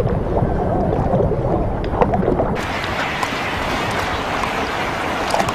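Seawater churning and splashing, dull and muffled as if heard underwater at first. About two and a half seconds in it turns into a brighter, hissing splash and wash of surface water.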